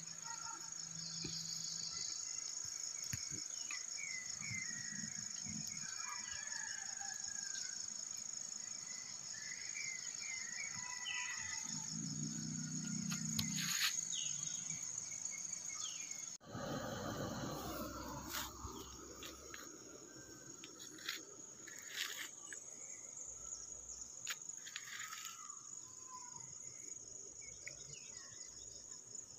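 Steady, high-pitched insect chorus with short wavering calls over it; the sound changes abruptly about sixteen seconds in, after which it is fainter, with a few sharp clicks.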